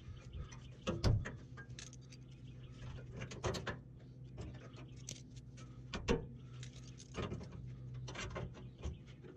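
Scattered light clicks, taps and clinks of sheet metal being handled and worked, with a few sharper knocks, over a steady low hum.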